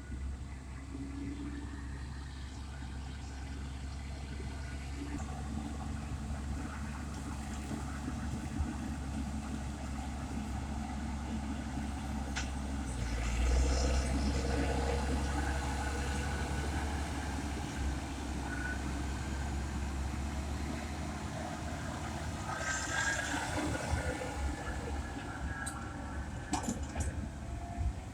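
Low, steady engine rumble of heavy farm vehicles running, swelling louder about halfway through, with a few sharp clicks and knocks.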